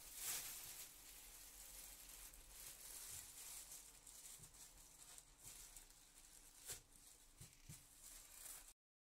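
Faint crinkling and rustling of a thin plastic carrier bag being pulled over a motorcycle boot and tucked under a riding trouser leg, with a couple of louder crackles near the start and late on.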